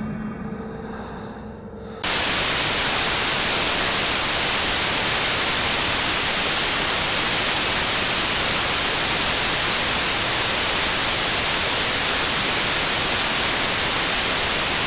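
A quieter, fading sound for about two seconds, then loud, steady white-noise static cuts in abruptly and holds level.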